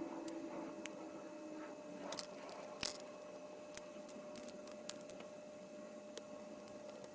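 LEGO plastic bricks being handled and pressed together: scattered small clicks and snaps, the loudest about three seconds in, over a faint steady hum.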